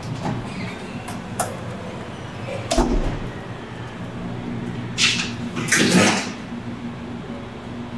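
A few sudden knocks and clatters over a steady low hum: a light click, then a knock, then two louder clatters a little past the middle.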